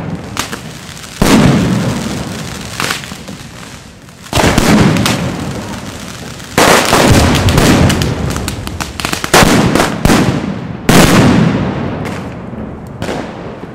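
Firecrackers going off on the ground: about six sudden loud bangs, each followed by a stretch of rapid crackling and popping that fades away.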